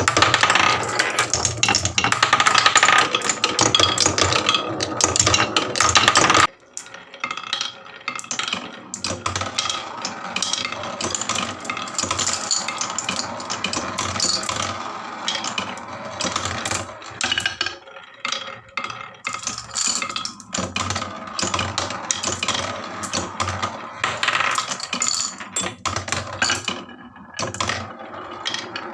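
Marbles rolling and clattering down a HABA wooden marble run, clicking against the track and each other. The sound is dense for the first six seconds or so, then drops off suddenly to a sparser, steady stream of clicks and rattles.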